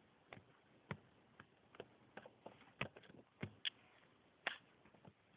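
Faint, irregular light clicks and taps, about a dozen scattered over five seconds, like small objects being handled.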